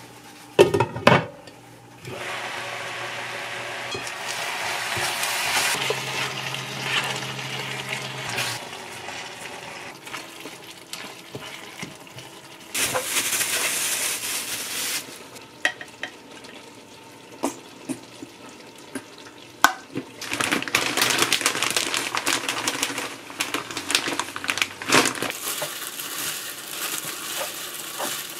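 A lid clattering onto a frying pan, then the pork bulgogi and bean sprouts in the pan sizzling steadily. Later, plastic rustling and crinkling as a plastic-gloved hand mixes rice and seaweed flakes in a glass bowl.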